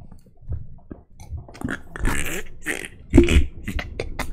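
A man's stifled laughter into his hand: irregular breathy bursts and snorts, quiet at first and stronger in the second half, the loudest just past the middle.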